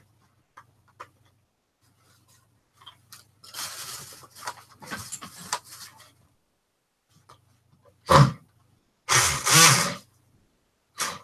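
Handheld rotary tool sanding a cork fishing float: rough, gritty grinding that comes and goes, a softer stretch in the first half and louder short bursts near the end.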